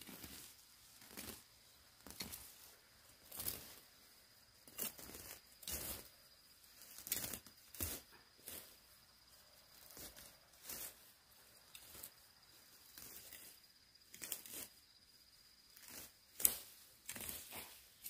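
Weeds and vines being pulled up and torn out by gloved hands: irregular bursts of rustling and tearing, about one every second or two. A faint steady high tone runs underneath.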